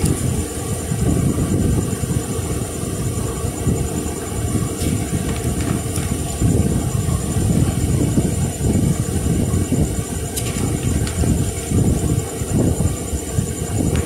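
Steady low rumble of air buffeting the microphone, with a few faint paper rustles and clicks as the pages of a booklet are handled.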